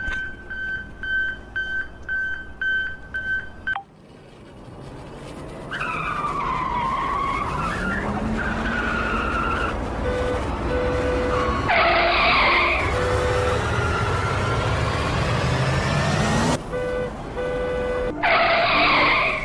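Electronic toy-vehicle sound effects. A high beep repeats about twice a second, like a reversing alarm, and stops about four seconds in. Then comes steady engine-like noise with swooping pitch glides and skid sounds, with loud sweeping swooshes about twelve seconds in and again near the end.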